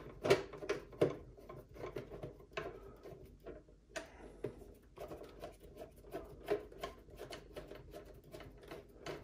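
Hand screwdriver driving the bottom machine screw of a VESA mount plate into the back of a monitor: a run of small irregular clicks and scrapes as the screw is turned, left loose for now, with a brief pause a few seconds in.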